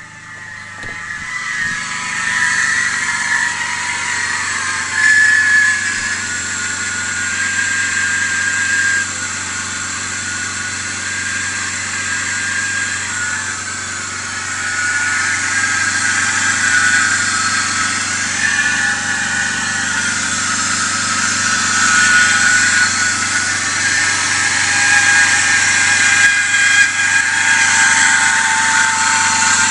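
BMW E39 525i straight-six engine running, with a wavering high squeal and chirping from a defective belt idler pulley. The noise swells over the first couple of seconds, then stays steady.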